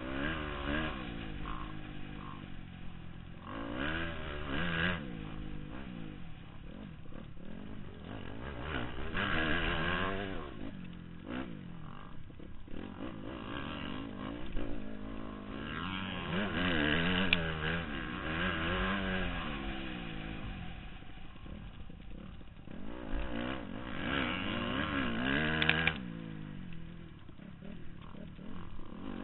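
Motocross dirt bike engine heard from a helmet-mounted camera, revving hard and easing off again and again as the rider works the throttle and gears around the track, with the pitch repeatedly rising and dropping.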